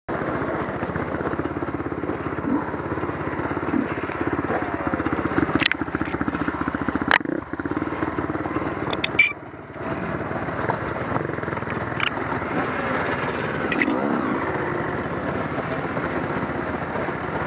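Honda CR two-stroke dirt bike engine running and revving up and down under the rider, with a few sharp knocks along the way. The engine sound drops off briefly about halfway through, then picks up again.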